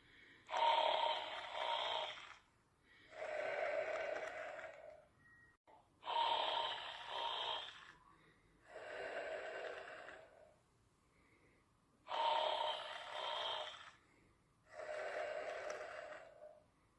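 Snoring in a slow, even rhythm. Each breath is a louder sound with two swells, followed by a softer one, and a new breath starts every five to six seconds, three times in all.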